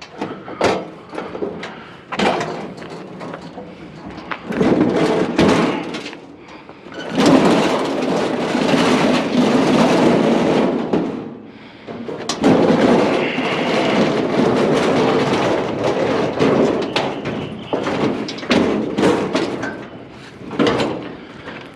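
Clanks and knocks of a large metal outdoor griddle being handled and moved, with two long stretches of rough dragging or shoving noise in the middle.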